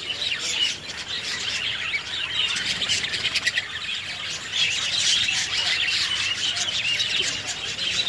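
A mixed roost of herons and cormorants chattering: many birds calling at once in a dense, continuous chorus of short, high, overlapping calls.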